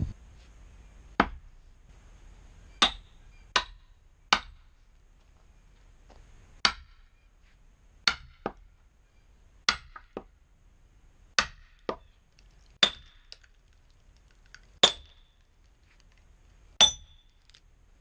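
Sledgehammer striking a steel splitting wedge driven into a hickory log: about fourteen sharp metal-on-metal strikes at an uneven pace, a second or two apart, some in quick pairs and several with a short ring. The log splits along its grain.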